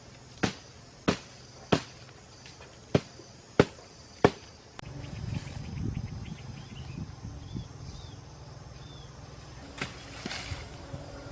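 A run of six sharp knocks or strikes, about one every half second or so, then low rustling and handling noise from about five seconds in, with a few faint high chirps.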